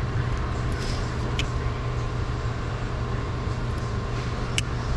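A steady low mechanical hum, with a faint sharp tick about a second and a half in and another near the end.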